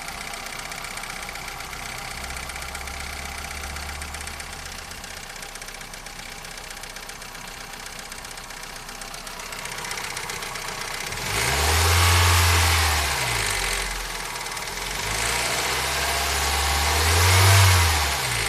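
Toyota 4S-FE inline-four engine idling with a knock, then revved up twice, about eleven and fifteen seconds in, each time rising and falling back. The knock is the fault the owner is trying to identify.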